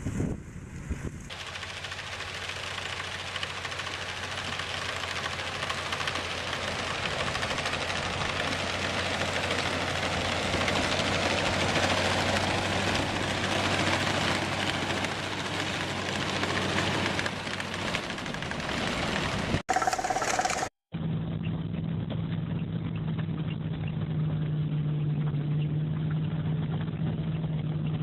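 Engines of heavy snow-clearing machines running steadily under a wide hiss, in several separate clips that cut abruptly from one to the next, about a second in and again about two-thirds of the way through.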